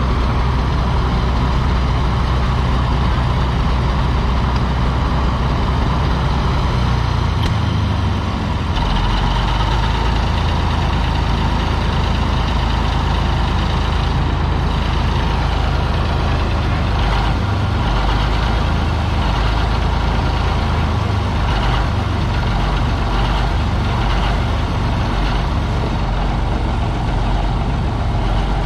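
The engine of a TD-24 crawler bulldozer runs steadily. About eight seconds in it briefly dips, then runs on with a busier, higher-pitched tone.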